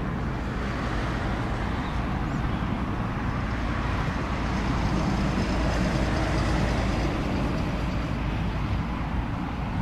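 Airbus A350's Rolls-Royce Trent XWB engines on final approach: a steady jet rumble that swells a little midway, with a faint high whine on top.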